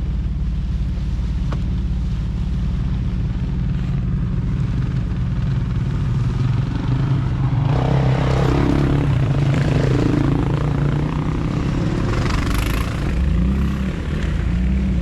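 Vehicle engine running low and steady on the trail. From about halfway through, a louder engine sound passes, with a rise and fall in pitch near the end, most likely a dirt bike going by.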